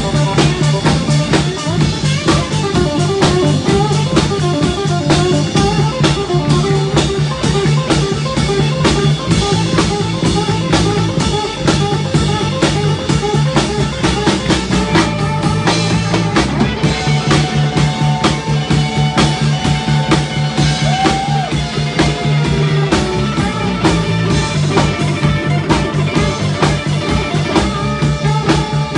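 Live blues-rock band playing an instrumental passage: electric guitars over a drum kit, with long held lead notes in the second half.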